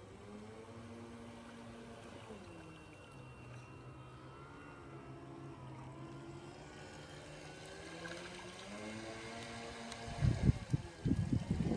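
Motor of a 1/10-scale radio-controlled model lifeboat (SNS 229) running as the boat cruises, a steady hum whose pitch rises and falls with the throttle. About ten seconds in, loud low rumbles break in over it.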